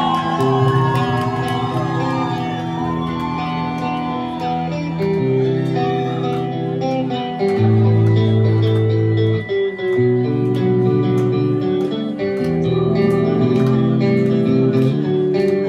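Live amplified band playing a song's instrumental intro: electric guitar chords over a bass line, the chords changing every second or two, heard from within the crowd in a club.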